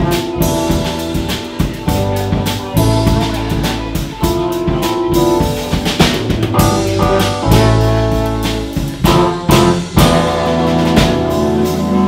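Live band playing a jazzy groove: trombone over drum kit and bass guitar. Near the end the drum hits thin out and held notes carry on.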